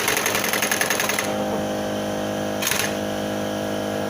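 Impact wrench hammering in a fast, even rattle on the clutch castle nut, which is stuck. It stops about a second in, and a steady mechanical hum carries on.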